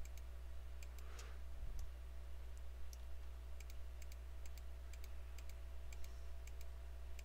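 Faint, irregular clicks of a computer mouse and keyboard while faces are selected on a mesh, over a steady low electrical hum.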